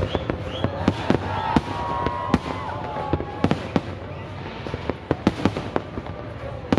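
Aerial fireworks bursting in a quick, irregular series of sharp bangs, over a steady background din.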